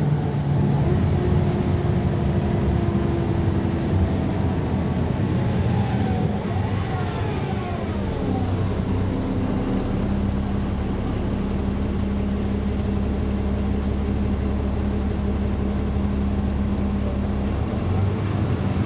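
A bus's Caterpillar C13 ACERT diesel engine and ZF Ecomat transmission, heard from on board. It runs steadily, with a whine that falls in pitch a few seconds in, then a steady low note, and the engine note changes near the end.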